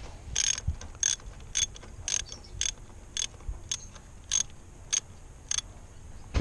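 Socket ratchet clicking in short, even strokes, about two a second, as a spark plug is unscrewed from a 3.5 L V6 engine.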